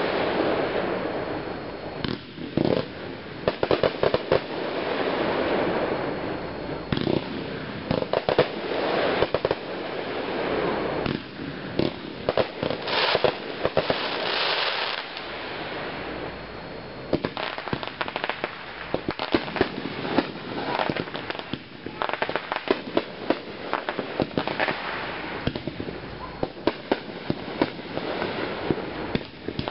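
Aerial fireworks launching and bursting, many sharp bangs and pops in quick succession, with a thicker wash of noise about halfway through.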